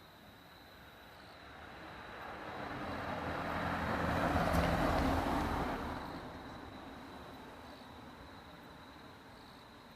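A road vehicle drives past: its engine and tyre noise swell steadily, peak about four and a half seconds in, then fade away.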